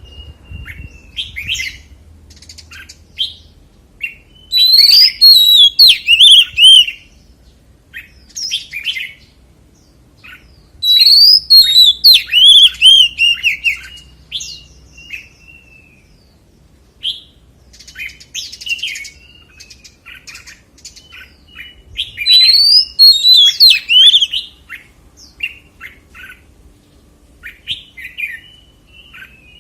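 Oriental magpie-robin singing: three loud bursts of rapid, sweeping whistled phrases, with scattered short notes and chirps in the gaps between them.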